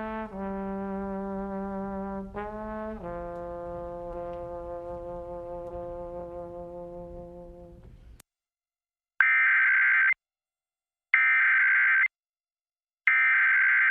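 A held musical chord that shifts twice in the first three seconds and fades out by about eight seconds in. Then comes the Emergency Alert System's SAME header: three one-second bursts of two-tone digital data, a second apart, encoding a Child Abduction Emergency (AMBER Alert) for all of Washington state.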